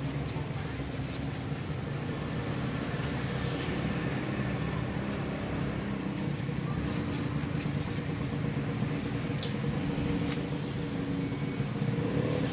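A steady low mechanical hum, like a motor or engine running, with a few faint clicks near the middle.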